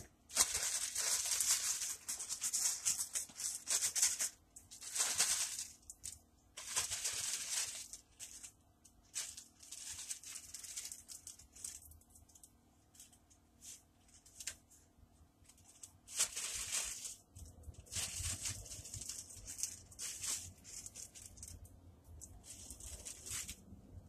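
Plastic zip-top bag crinkling and rustling in repeated bursts as seasoned chicken tenders are pulled out of it, with small clicks and taps between the bursts.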